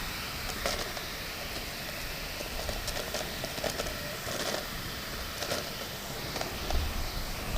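Vacuum cleaner running under a steady hiss of heavy rain, with scattered clicks and knocks and a low rumble near the end.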